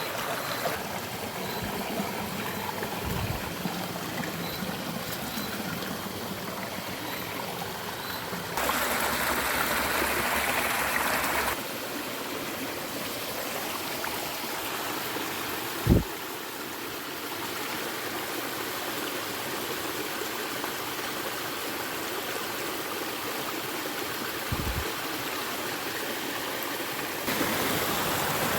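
Creek water running steadily, louder for about three seconds near the middle, with a sharp thump about halfway through and a softer one later.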